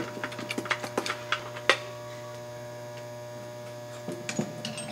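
Ratchet on a long extension clicking quickly as the loosened last transmission bolt is run out, with a louder clack just under two seconds in and a few light knocks near the end. A steady electrical hum runs underneath.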